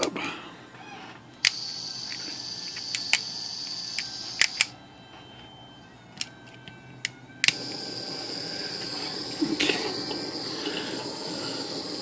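Small hand torch lit with a click about a second and a half in, its flame hissing steadily. The flame goes out after about three seconds, a couple more clicks follow, and it relights with a click about halfway through, hissing on.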